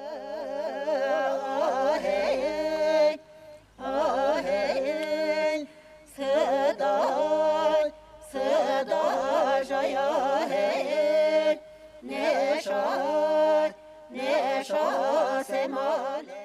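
Singing of a folk melody in six phrases of about two to three seconds each, with short breaks between them. The pitch wavers and is ornamented, centred around one held note.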